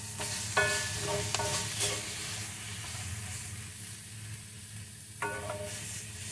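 Tofu scramble sizzling in a hot frying pan as it is stirred, with a few short pitched scrapes of the utensil on the pan, in a run from about half a second in and again near the end.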